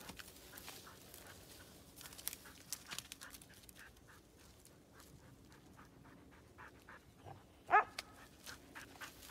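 Moose-hunting dog panting among small crackles, with one short bark about three-quarters of the way in.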